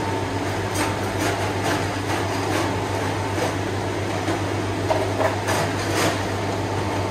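Steady hum and whir of juice-bar machinery, with a few light clicks and knocks of cups and utensils.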